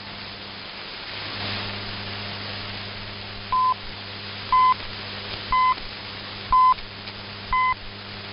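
Shortwave AM reception with steady static hiss and hum. From about three and a half seconds in come five short, high beeps, one a second: broadcast time-signal pips counting down to the start of the Voice of Turkey's English transmission.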